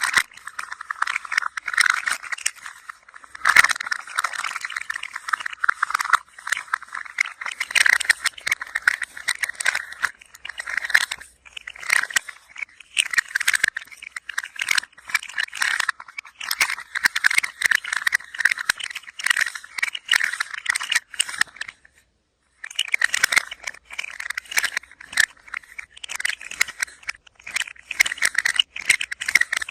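A hand-held toy rattling as it is moved, a dense patter of small clicks that stops briefly about three quarters of the way through and then resumes.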